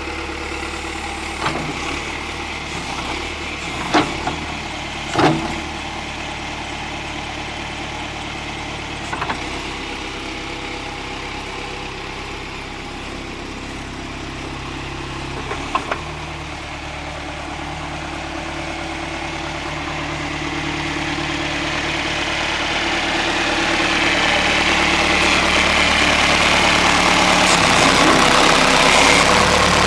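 John Deere 510C loader backhoe's turbo diesel engine running, with a few sharp knocks in the first half. Over the last ten seconds the engine grows steadily louder.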